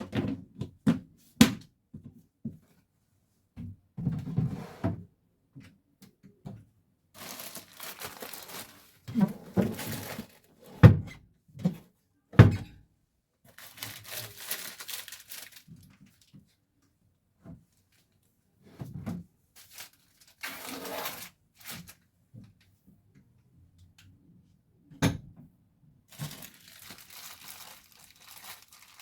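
Household handling sounds: plastic packaging crinkling and rustling in short spells, between dull thuds of objects being set down.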